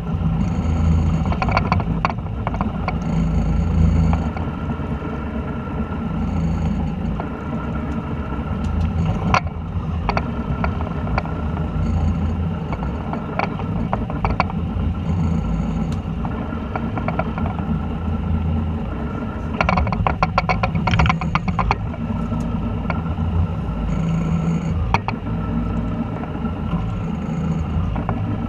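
Boat engine running with a steady low drone, over which fishing reels clatter and click as they are cranked, in rapid runs of clicks twice in the middle.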